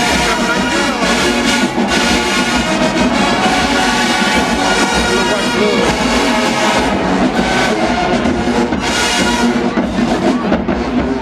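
HBCU marching band playing loudly, its brass section of trombones and trumpets carrying the tune.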